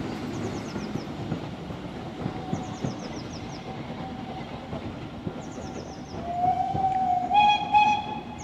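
Steam train running on the rails out of sight, its rumble fading. About six seconds in, a steam whistle sounds for about two seconds, rising slightly in pitch and holding.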